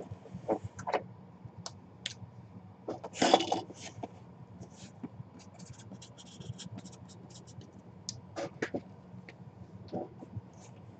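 Marker pen scratching on a cardboard box lid in quick short strokes, among light clicks and rustles of the box being handled.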